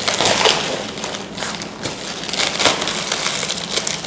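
Polythene wrapping crinkling as it is pulled off a framed wall print, in irregular rustles and crackles.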